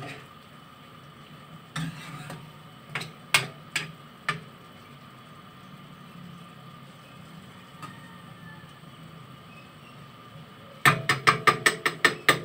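Metal spatula knocking and scraping against a wok while chopped sayote is stir-fried. There are a few separate clanks in the first half, then a quick run of about eight clanks near the end.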